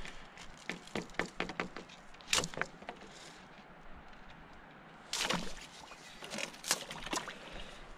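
Wooden stick tapping and prodding a thin sheet of ice on a frozen pond, a run of sharp clicks and knocks with the loudest crack about five seconds in as the ice breaks.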